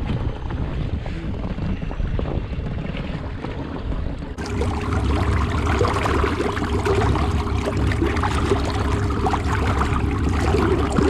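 Green inflatable boat running across a choppy lake: water rushes and splashes against the hull over a steady motor hum, with wind on the microphone. About four seconds in the splashing becomes louder and closer.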